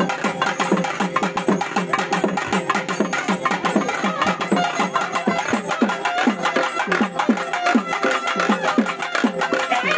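Traditional festival music with drumming: a drum struck about three times a second, each stroke falling in pitch, over a steady held tone and a dense layer of other music.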